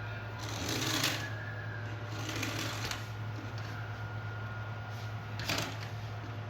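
Plastic toy vehicles being handled and rolled, rattling in short bursts three times over a steady low hum.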